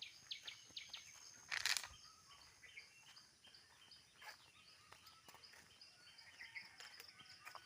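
Faint outdoor ambience of wild birds chirping: many short, quick notes repeating, with a thin, steady high tone under them for the first few seconds. Just under two seconds in, one brief, louder rasp stands out.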